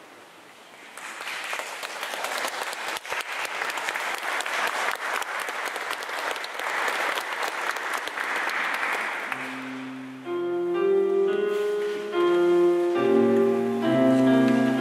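Audience applauding for several seconds. About ten seconds in, instrumental music starts with slow, held chords.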